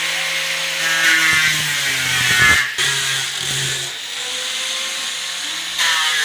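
Handheld angle grinder running against plywood cabinet doors, sanding the surface flat: a steady motor whine with a scraping grind. The sound breaks off briefly about two and a half seconds in.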